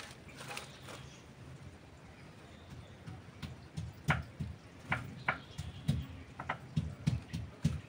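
Irregular sharp taps and clicks with dull thumps beneath, starting about three seconds in and coming roughly every half second.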